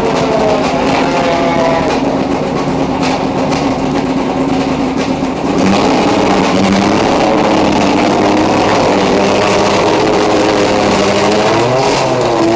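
Honda New Civic TC2000 race car engine running near idle, steady, then a little louder and higher from about halfway, with small rises and falls in engine speed near the end as the throttle is blipped.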